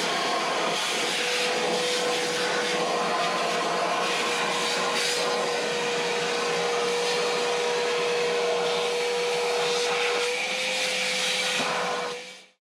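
Electric power tool running steadily with a constant motor whine, cutting off abruptly near the end.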